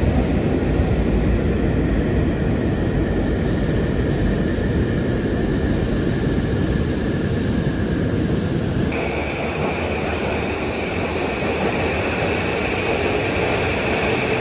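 Steady, loud rumbling noise of a moving train, typical of a Shinkansen bullet train. About nine seconds in it cuts abruptly to a different steady noise with a high whine over it.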